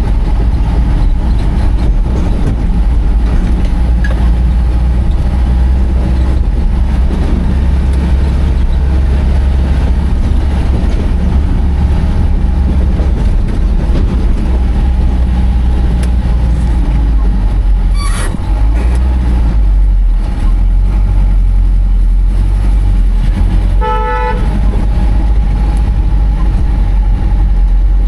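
Heavy vehicle engine running steadily with a loud low rumble, with a short horn toot about 24 seconds in and a brief sharp knock about 18 seconds in.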